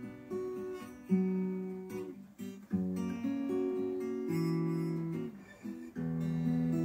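Solo acoustic guitar playing an instrumental interlude, chords plucked and strummed and left to ring, with fresh chords struck about a second in, near three seconds and again about six seconds in.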